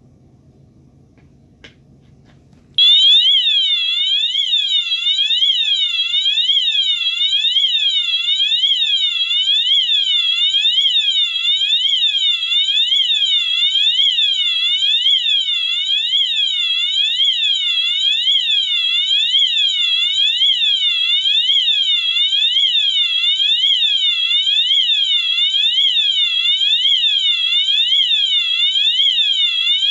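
Wheelock MT electronic fire alarm horn set to its siren tone, starting suddenly about three seconds in and sounding a loud, high electronic wail that sweeps rapidly up and down, repeating evenly.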